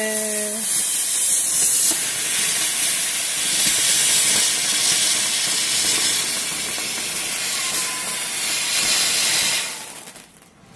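Handheld Vanitha Icon pencil firework burning, its fountain of sparks spraying with a steady loud hiss that dies out near the end.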